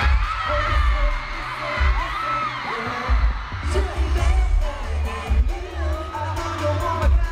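A K-pop song played live over a concert sound system, with a loud, pulsing bass beat and singing over it, heard from the audience.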